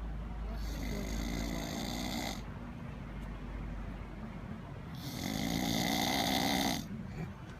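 A man snoring: two long, raspy snores, each about two seconds, with a quiet pause of a few seconds between them.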